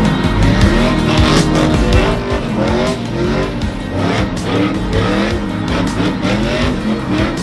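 Pickup truck engines revving up and down with tires squealing, doing donuts in a burnout pit, mixed with background music that has a steady beat.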